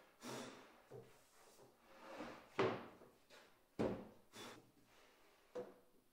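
A large wooden board being laid on a wooden workbench and slid into position, with brief scraping and a few dull knocks, the two loudest near the middle.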